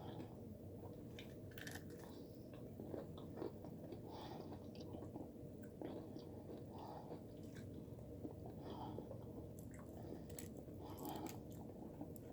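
Faint close-up chewing and biting of fried chicken, with scattered small crunches and mouth clicks over a low steady hum.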